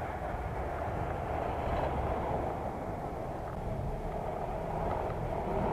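Steady, muffled rumble of wind and rolling noise while riding a bicycle along a city street, picked up by an action camera's built-in microphone.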